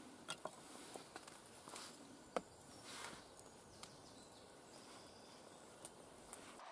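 Faint scraping and scattered small clicks of a Mora knife blade shaving curls down a wet conifer stick to make a feather stick, with the sharpest click about two and a half seconds in.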